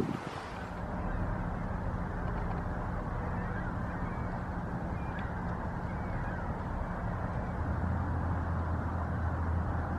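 Waterfowl calling faintly a few times over a steady low hum.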